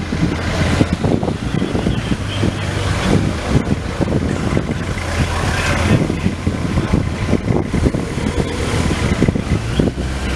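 Police escort motorcycles and cars pulling away slowly in convoy, their engines a steady low hum under irregular street noise.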